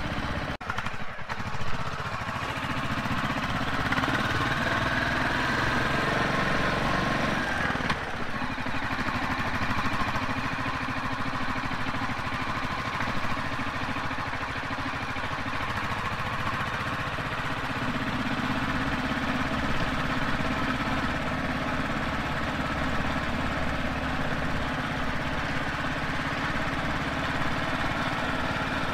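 Royal Enfield Classic 350's single-cylinder engine running steadily under way, heard from the handlebars over wind and road noise. There is a brief dip and a sharp knock about a second in, and the engine note changes around eight seconds in.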